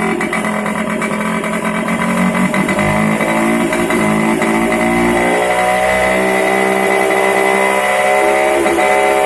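TVS XL Super Heavy Duty moped's small single-cylinder two-stroke engine running, its speed rising slowly from about three seconds in as the carburetor's idle speed is turned up during tuning.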